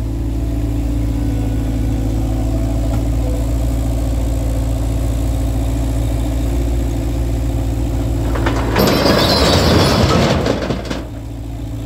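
Avant 850 compact loader's diesel engine running steadily. Near the end, about two seconds of loud rattling as the tipped bucket empties its load into a steel skip.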